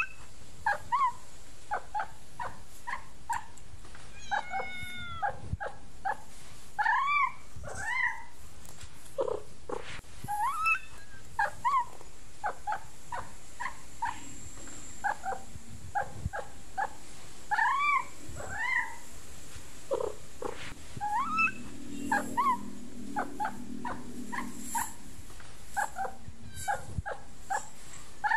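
Kittens mewing over and over: short, high calls that rise and fall in pitch, coming every second or so.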